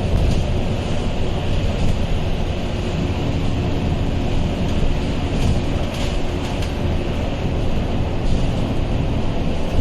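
Scania K230UB city bus running, heard from inside: a steady low rumble of its diesel engine and road noise, with faint steady tones and light rattling over it.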